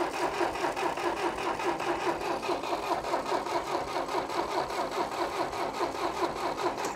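Starter motor cranking a Massey Ferguson 135's four-cylinder gasoline engine, turning it over in a fast, even rhythm without it firing, then stopping abruptly. The engine is thought to be flooded.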